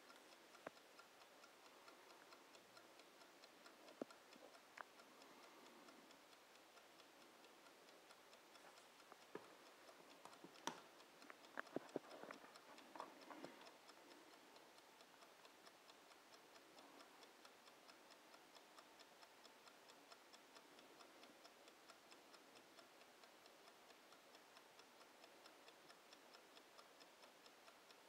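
Bodum mechanical wind-up kitchen timer ticking faintly and evenly. A few sharper, louder clicks stand out around the middle.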